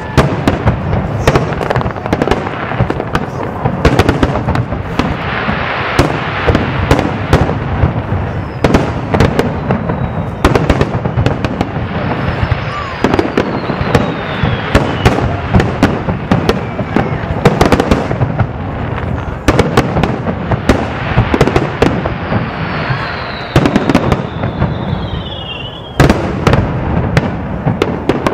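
Aerial fireworks shells bursting in quick succession: a dense run of sharp bangs over steady crackling, with a few whistles falling in pitch.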